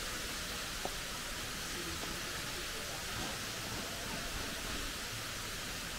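Steady hiss of rushing water, even and unbroken, with a single light click about a second in.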